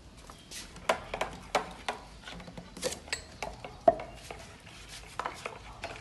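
Metal spoon stirring passion fruit pulp and water in a plastic bowl, clicking and tapping irregularly against the bowl, with one sharper knock about four seconds in.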